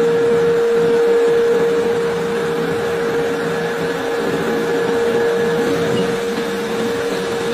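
Ring-rolling mill running as it rolls a red-hot steel ring: a steady, unbroken whine over continuous machine noise.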